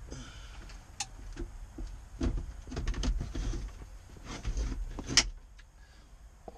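Car radio being pushed into a Ford F-350 dashboard and the plastic dash trim pressed home around it: scraping, clicking and knocking of plastic and metal, with one sharp snap about five seconds in.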